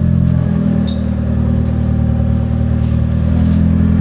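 Vehicle engine idling steadily with a deep, even drone.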